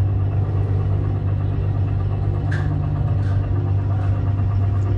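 A steady, loud low hum that does not change, with a few faint ticks over it.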